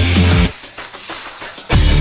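Loud background music with a heavy beat. About half a second in the bass and drums drop out, leaving a thinner, quieter passage, and the full band comes back in about a second later.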